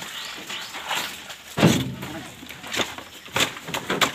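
Thuds and cracks of banana harvest work, with bunches being cut and handled for loading. The heaviest thud comes about one and a half seconds in, followed by three sharper knocks.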